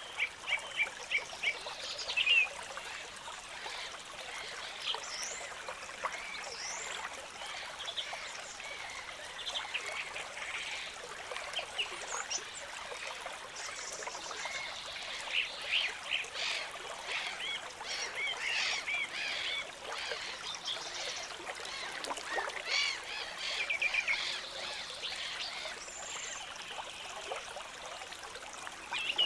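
Water trickling steadily in a stream, with birds calling over it in many short chirps and trills.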